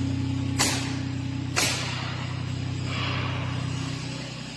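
A steady low machine hum that fades away near the end, with two sharp knocks in the first two seconds and a brief hiss about three seconds in.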